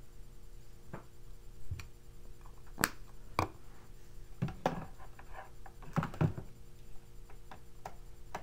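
Scattered small clicks and knocks of objects being handled close to the microphone, about ten in all, the loudest near three and six seconds in.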